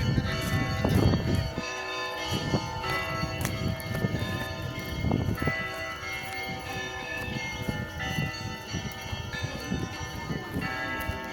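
Church bells ringing: several bells struck again and again, their tones overlapping and hanging on, with irregular low thumps underneath.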